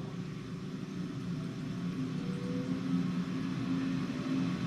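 Lochinvar Shield commercial gas water heater running with its burner freshly lit and its circulating pump on: a steady hum and rush that slowly grows louder, with steady low tones coming in about two seconds in. The unit is running normally after the leaking pump union was repaired.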